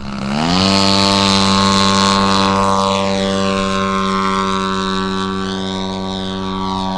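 Twin-cylinder 100cc DLE gas engine of a giant-scale RC Super Decathlon running at high throttle and spinning a 28-inch propeller. The pitch climbs quickly in the first half-second, then the engine holds a loud, steady note.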